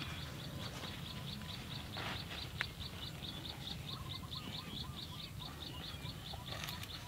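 A bird calling a rapid run of short, high, even chirps, about four or five a second, with a lower twittering phrase about halfway through. Soft rustling of lotus leaves being unwrapped, and one sharp click about two and a half seconds in.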